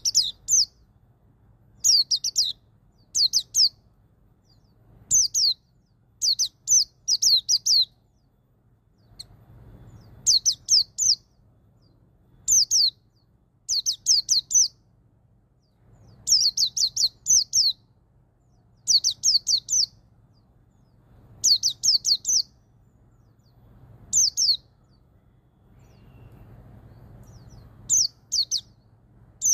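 White-eye (pleci) singing its 'ngalas' song: short, high-pitched phrases of three to five quick, falling notes, repeated every second or two with brief pauses between them.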